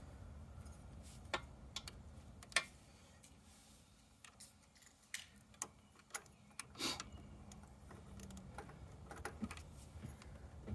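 Faint, irregular metallic clicks and taps of a socket wrench and small hardware while the wires are taken off a motorcycle ignition coil, with one longer clatter about seven seconds in.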